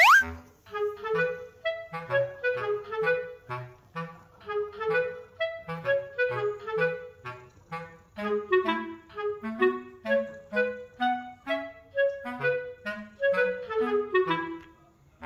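Background music: a light, bouncy melody of short separate notes over a plucked-sounding bass line. Right at the start a quick rising whistle-like sound effect slides upward.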